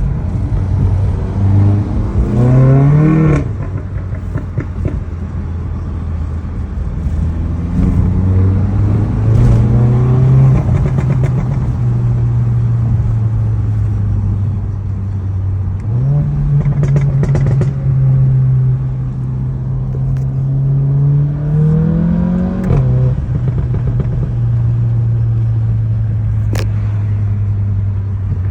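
Turbocharged 2.0-litre four-cylinder engine of an APR Stage 2 tuned 2015 Volkswagen GTI, idling and revved several times. Its pitch climbs sharply and drops back about two seconds in and again near 23 seconds, with a slower rise around eight to ten seconds and a higher steady hold for several seconds in the middle.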